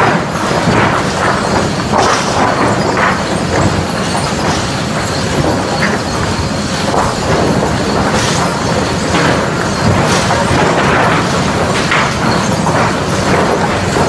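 Sawmill trim and sort line running: chain transfers and a lug loader moving southern yellow pine boards, with irregular clattering and knocking of boards over a steady machine din.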